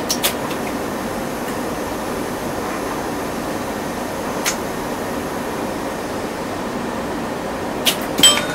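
Scale-model traction lift's small DC motor and worm-gear sheave running steadily as the car travels between floors. There are sharp clicks from the electromechanical control relays just after the start, once midway and twice near the end.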